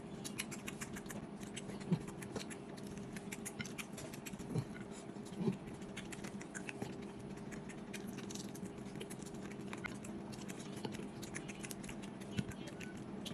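Close-miked eating: a steady stream of small wet mouth clicks and chewing sounds, with a few short low hums from the eater's throat.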